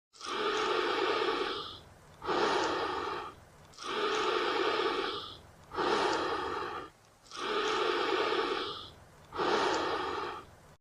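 Michael Myers' heavy, slow breathing behind his mask, the horror-film sound effect: three long in-and-out breath cycles, each drawn breath lasting a second or more.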